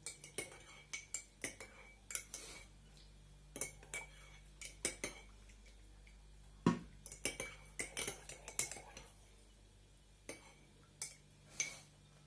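Metal teaspoon clinking and tapping against a glass of hot milk: a series of irregular light clinks, some with a short ring, and one heavier knock about halfway through.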